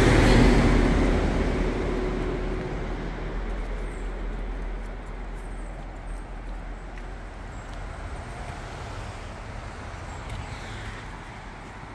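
A passing vehicle's road noise from a nearby highway, loudest at the start and fading steadily over the next several seconds into a low background hum of traffic.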